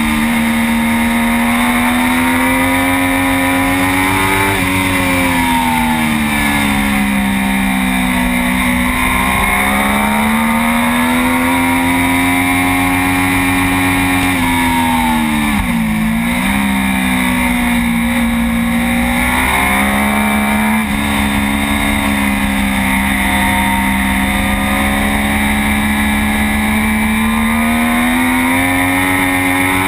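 Triumph Daytona 675 inline-three engine at racing speed, its note rising and falling as the rider accelerates, shifts and backs off through corners. About halfway through the pitch drops sharply and then climbs again, under a steady rush of wind noise on the bike-mounted camera.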